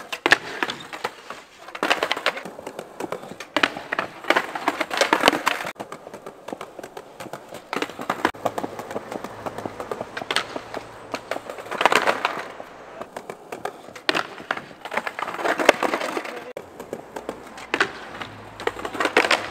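A skateboard being flipped and slid along a wooden-slatted bench ledge during darkslide attempts. Its wheels roll over the paving stones and the board scrapes on the wood, with sharp clacks and slaps as it hits the ledge and the ground, coming in several bursts with quieter gaps between.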